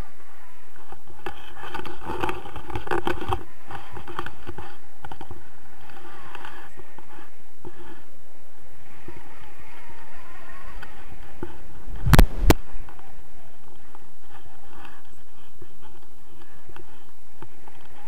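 Wind rushing and buffeting over an action camera's microphone in paraglider flight, with two sharp knocks close together about twelve seconds in.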